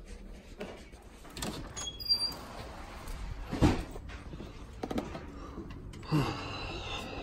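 A door being opened and shut, with several knocks and handling clicks; a few short high squeaks about two seconds in, and the loudest thump about three and a half seconds in.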